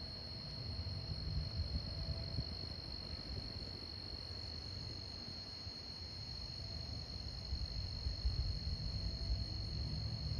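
Crickets trilling in a steady, unbroken high-pitched chorus, over a low, uneven rumble.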